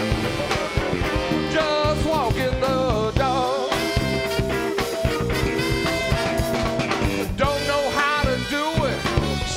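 Live electric blues band playing, with an electric guitar lead of bent, wavering notes over bass and drums.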